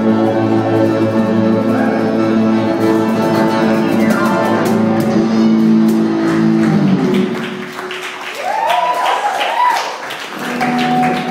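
Live band music ending on a held chord about seven seconds in, followed by audience clapping with a few whoops and cheers.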